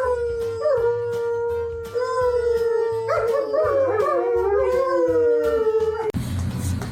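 Dog howling over background music with a steady beat: one long, held howl that bends in pitch, joined about three seconds in by further wavering howls. The howling cuts off abruptly near the end.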